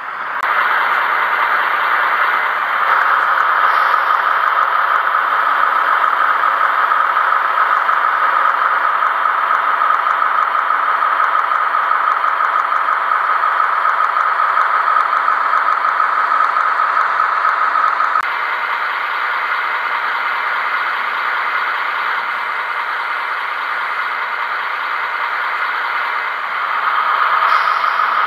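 HO-scale model diesel shunter running along the track, its electric motor and gears giving a steady whine. It gets a little quieter about two-thirds of the way through and louder again near the end.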